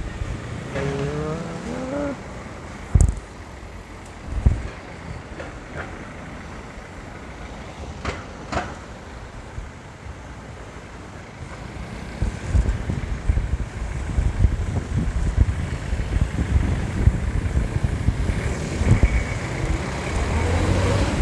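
Street traffic: road vehicles passing as a steady rumble, which grows louder from about halfway on, with two short thumps a few seconds in.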